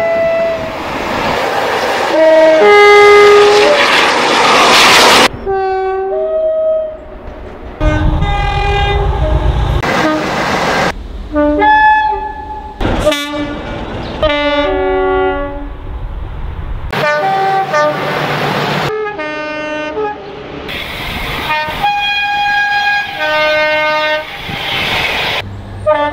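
A string of British diesel locomotive horns, one short clip after another, each horn sounding its two-tone call with the notes stepping between a high and a low pitch. A heavy diesel engine rumble runs under one of the horn blasts.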